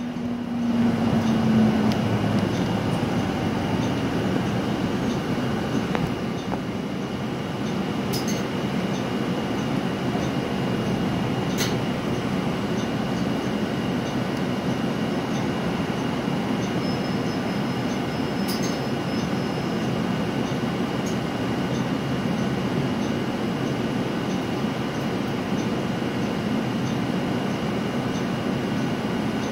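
Interior running noise of a Nova Bus LFS city bus under way: steady road and drivetrain rumble with a faint high whine. A humming engine note dips and fades within the first couple of seconds, and a few light clicks or rattles come through later.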